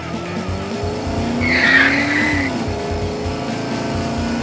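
Added car-chase sound effects: a steady engine drone with one tyre screech about a second and a half in, lasting about a second.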